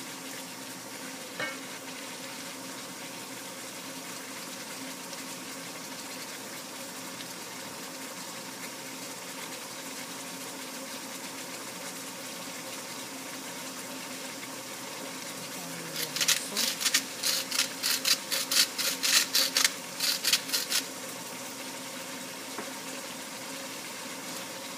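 Vegetables cooking in oil in a pan, a gentle steady sizzle over a faint hum. About two-thirds of the way through comes a run of quick sharp clacks, about four a second for some five seconds.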